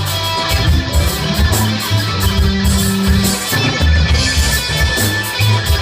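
Rock band playing an instrumental passage: electric guitar over bass notes, with a steady beat ticking along in the cymbals.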